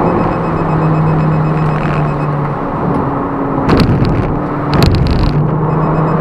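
Inside the cabin of a ZVW30 Toyota Prius race car, its 1.8-litre 2ZR-FXE four-cylinder engine drones at a steady, unchanging pitch. The drone drops away about two and a half seconds in, two short harsh rushing bursts follow, and the steady drone returns near the end.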